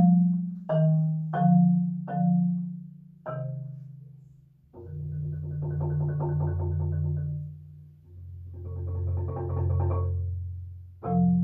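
Marimba improvisation played with four yarn mallets: a few separate low chords struck and left to ring over the first few seconds, then two long rolled chords in the low register that swell and fade away, with fresh struck notes near the end.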